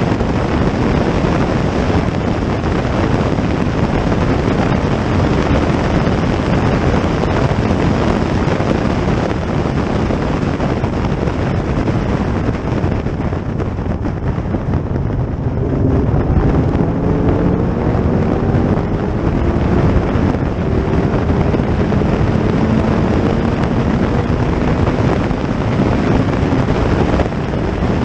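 Heavy rushing wind noise on the microphone, with a racing car's engine coming through about halfway in and climbing slowly in pitch as it accelerates.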